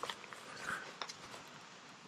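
Footsteps on a trail under a thin layer of fresh snow: a few faint, irregular crunches and clicks.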